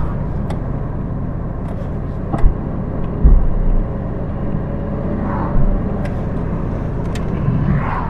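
Steady car engine and road noise heard from inside the cabin, with a few dull low thumps.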